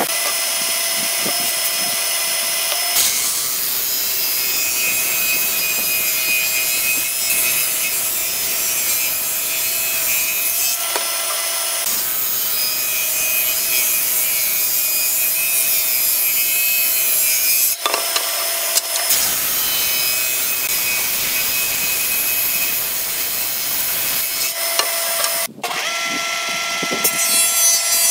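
Hitachi combination woodworking machine cutting old weathered boards, first ripping on its table saw and later on its jointer: a steady motor whine under a continuous noisy cutting sound. The sound changes abruptly a few times as one cut gives way to the next.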